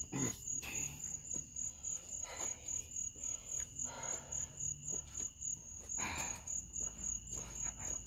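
Crickets chirping in a steady, rapid high-pitched pulse, with a few brief soft swishes of someone kicking.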